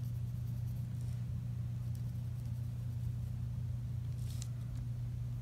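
A steady low hum, with a few faint scratches of a pen drawing on paper, the most distinct about four seconds in.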